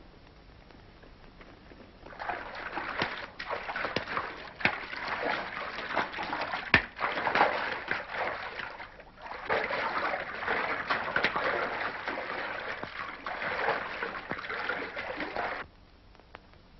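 Heavy splashing and sloshing in water, full of sharp slaps. It starts about two seconds in, breaks off briefly midway and stops suddenly near the end. The old film soundtrack is narrow and lacks any crisp top end.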